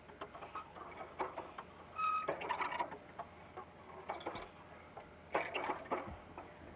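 Metal chains of a playground swing set clinking and squeaking as the swings move back and forth, in bursts a few seconds apart.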